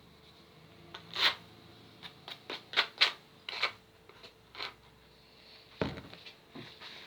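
Irregular light clicks and taps of small utensils and containers being handled, about a dozen sharp ticks spread unevenly, with the loudest cluster about one to four seconds in.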